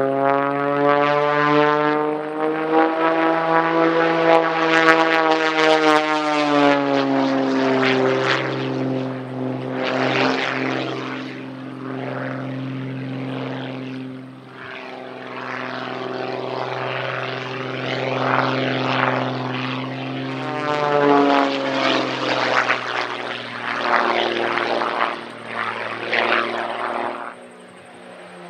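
Pitts S-1-11B aerobatic biplane's six-cylinder Lycoming engine and propeller running hard through aerobatic manoeuvres, its note rising and falling in pitch. Rougher rasping stretches come and go, and the sound fades briefly about halfway through and again near the end.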